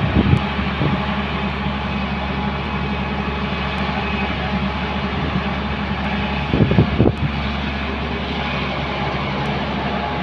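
Diesel engines of a working excavator and backhoe loader running steadily, with a brief louder surge of knocking and engine noise about two-thirds of the way through.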